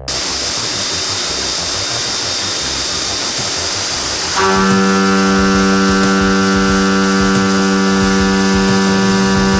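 Leadwell V40 CNC milling machine running: a loud, steady hiss that starts abruptly, joined about four and a half seconds in by a steady humming tone.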